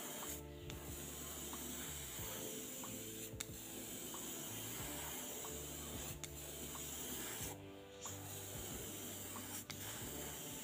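Airbrush spraying paint with a steady high hiss that stops briefly twice, once about half a second in and once near eight seconds. Background music plays underneath.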